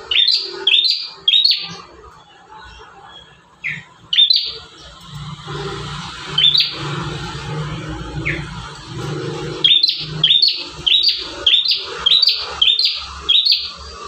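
Prenjak tamu (olive-backed tailorbird) calling with short, sharp chirps: three near the start, a few single notes in the middle, then a quick run of about eight, two a second, near the end.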